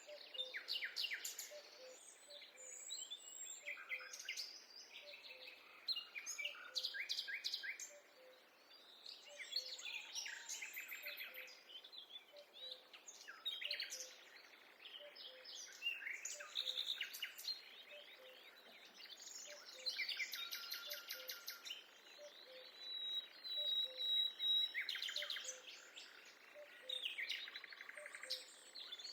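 Several songbirds singing and calling at once, with trills and rapid chirp series overlapping one after another. A faint low note repeats evenly underneath, about twice a second.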